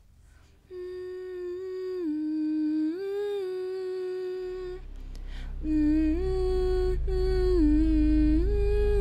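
A girl humming a slow, lullaby-like tune in a high voice: long held notes that step up and down, with a short break about five seconds in. A low steady rumble comes in under the humming about halfway through.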